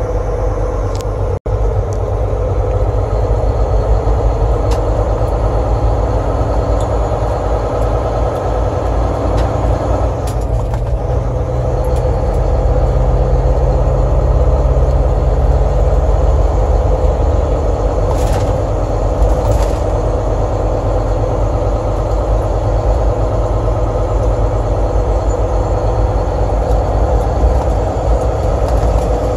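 Steady low engine rumble heard inside a truck's cab while it creeps in slow traffic, with two short hisses about two-thirds of the way through.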